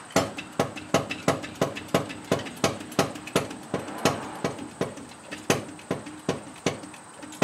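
Hydraulic jack being pumped by hand: a quick, even run of sharp clicks, about three a second, as the engine and transmission are raised.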